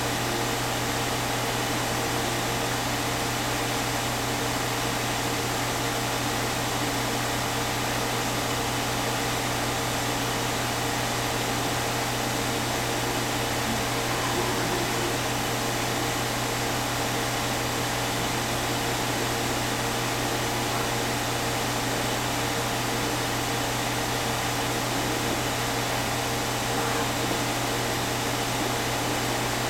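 Steady hum and hiss of running machinery: a low drone with several fixed tones above it and an even hiss, with no events standing out.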